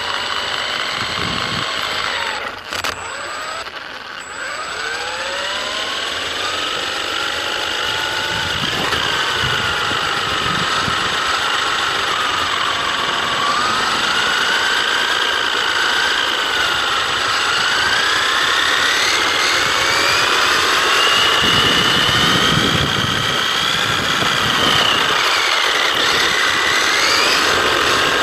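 Electric motor and drivetrain of an Absima AB1BL radio-controlled buggy whining, its pitch rising and falling as the buggy speeds up and slows, over the rumble of its tyres on the ground. The whine drops out briefly a few seconds in.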